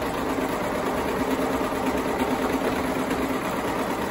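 Brother four-thread serger running steadily at stitching speed, stitching and trimming fabric as it is fed through around a curve.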